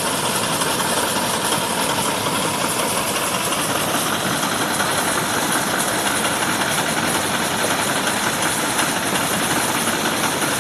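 Car engine rebuilt as a water-pump engine, running steadily on test.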